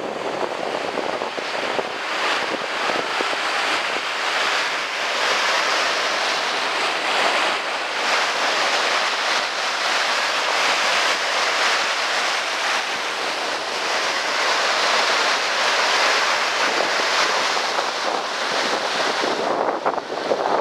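Small waves breaking and washing up onto a sandy beach: a steady surf hiss that gently swells and eases, with wind.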